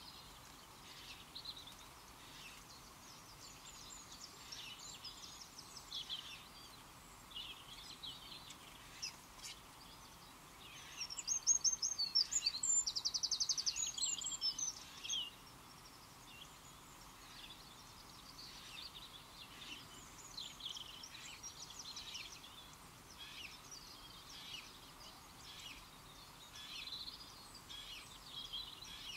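Small songbirds singing and calling in short phrases over a faint steady hiss. One louder song with a rapid trill of repeated notes comes about eleven seconds in and lasts some four seconds.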